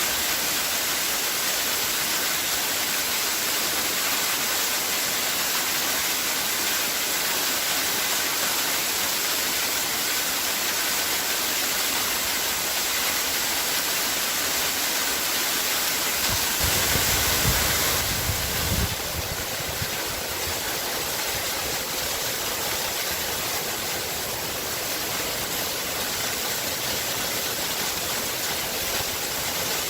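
A waterfall rushing steadily. A low rumble swells for a couple of seconds a little past halfway, and afterwards the rush is slightly softer.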